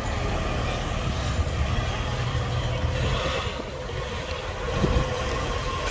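A vehicle rumbling low and steady, easing off briefly a little past halfway and then coming back up.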